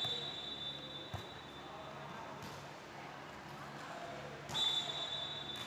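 Volleyball referee's whistle blown twice: one long blast already sounding at the start and fading over about a second and a half, then another loud blast about four and a half seconds in. Players' voices and a ball thud sound in between.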